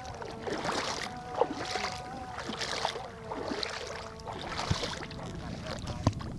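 Footsteps wading through shallow seawater, splashing at a walking pace of roughly one step every two-thirds of a second, over a faint steady hum.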